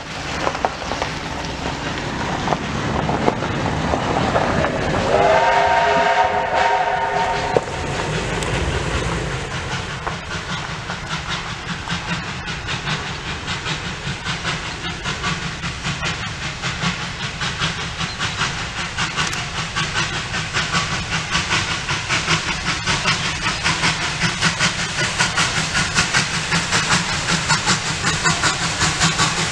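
Victorian Railways J class 2-8-0 steam locomotive J549 approaching. Its whistle blows once, a steady note lasting about two and a half seconds, around five seconds in. After that its rhythmic exhaust beats grow steadily louder as it draws near.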